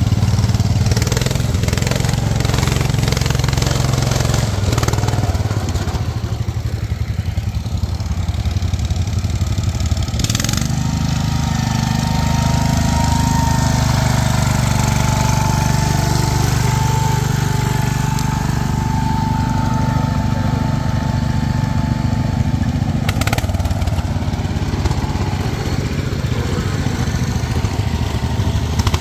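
Wheel Horse garden tractor engine running steadily as the tractor drives through mud. A thin whine sounds for several seconds in the middle, and there are two short knocks.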